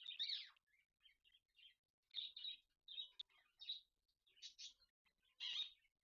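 Indian ringneck parakeets making a string of short, high chattering calls and chirps as a pair mates. There is a louder call right at the start and another near the end.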